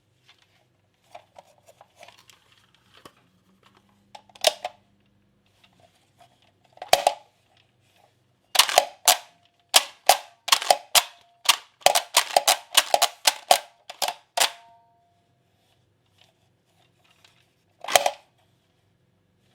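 Kamen Rider Blade Blay Buckle toy transformation belt being handled, giving sharp plastic clicks and snaps. A few come singly, then a dense run of them in the middle and one more near the end.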